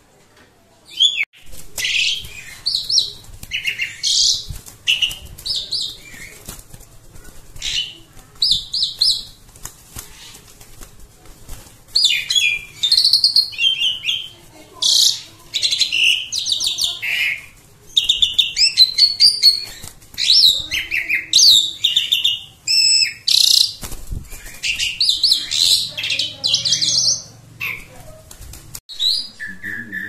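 Asian pied starling (jalak suren) singing loudly: a long run of short, high-pitched chattering and whistled notes in bursts, with brief pauses between phrases.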